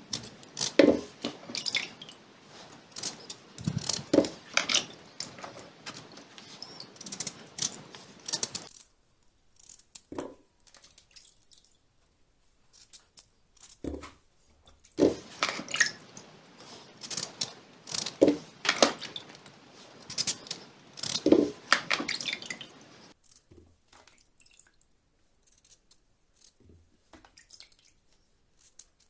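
Kitchen knife cutting raw potatoes into chunks in the hand, with the wet chunks dropping into a pot: a run of crisp cuts, knocks and plops in two spells of several seconds, with a few single knocks between them.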